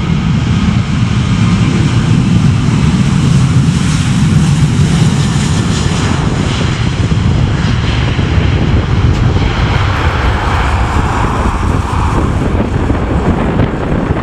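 Boeing 737-800's twin CFM56-7B turbofan engines at takeoff thrust during the takeoff roll: a loud, steady jet noise as the airliner accelerates down the runway and lifts off.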